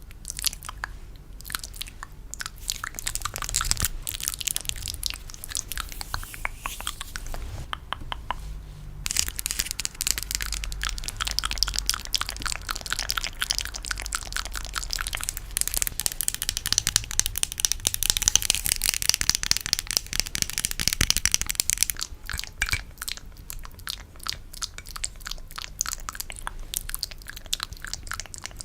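Close-miked ASMR trigger sounds: a dense run of quick, wet, sticky clicks and crackles, busier and louder through the middle stretch.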